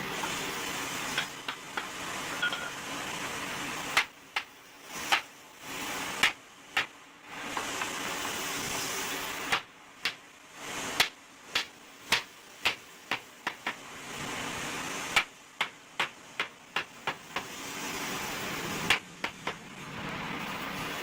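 Workshop sounds: stretches of steady hiss, likely a power tool or compressed air, alternate with quieter gaps full of sharp taps and knocks. The taps come in quick runs around the middle and near the end.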